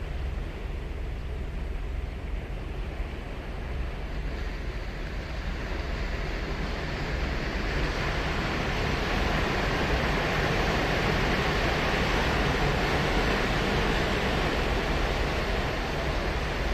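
Ocean waves breaking and washing onto a sandy beach, the surf swelling louder about halfway through, with low wind rumble on the microphone.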